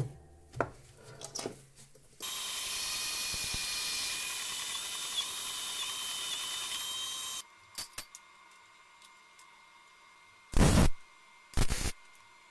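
A few light clicks, then an abrasive chop saw's motor running with a steady high whine for about five seconds. Near the end come two short, loud bursts of arc welding, about a second apart, as tacks go onto a steel frame.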